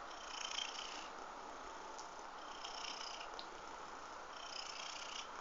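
Domestic cat purring steadily, in soft swells that come about every two seconds.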